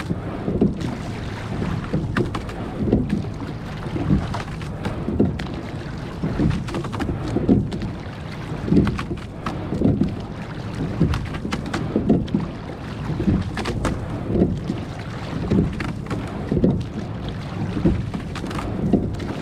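Oars of a rowing boat working through the water in a steady rhythm, a stroke sound about once a second.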